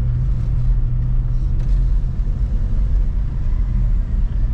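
Car engine and tyre rumble heard from inside the cabin while driving, a steady low drone.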